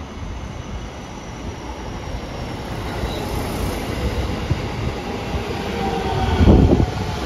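JR West 207 series electric commuter train rolling in along the platform. Its running noise grows louder as the cars pass close by, with a brief louder rumble about six and a half seconds in.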